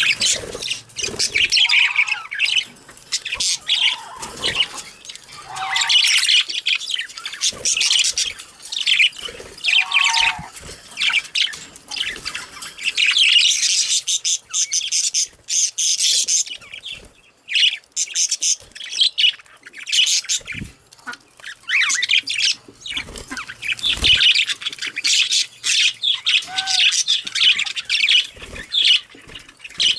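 Budgerigars chattering continuously, with quick chirps, warbles and squawks running together.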